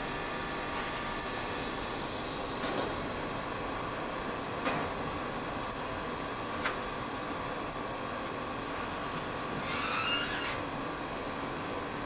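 Solder paste stencil printer running: a steady machine hum and hiss, with three sharp clicks about two seconds apart and a brief rasping sound about ten seconds in.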